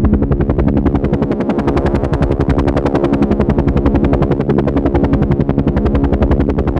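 Helicopter in flight, its rotor blades chopping in rapid, even beats over a steady engine drone.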